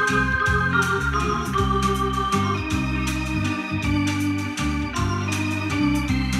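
Instrumental interlude played on an electronic keyboard in an organ voice: sustained chords and a melody over a pulsing bass line, with light rhythmic percussion ticks.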